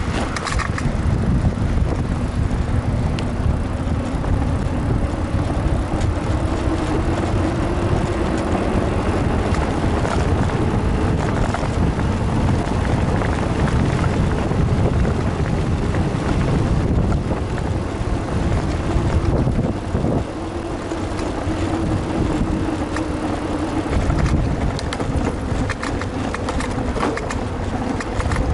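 Steady rumble of wind on the microphone and tyres on the road while riding a bicycle, with a faint hum that rises and falls twice.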